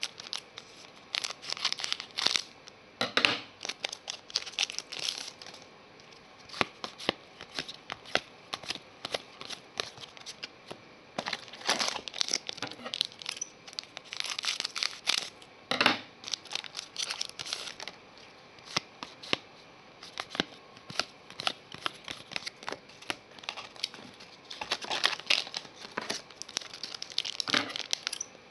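Trading cards being handled and slid through one by one: an irregular run of sharp paper flicks and rustles, with quieter stretches between busier spells.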